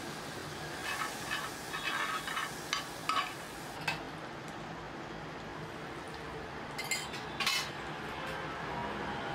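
Butter sizzling on a hot flat griddle, with sharp clinks of metal utensils, several between about one and four seconds in and two more around seven seconds.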